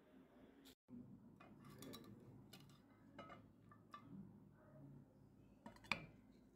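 Near silence: faint room tone with a few scattered small clicks and taps, the sharpest about six seconds in.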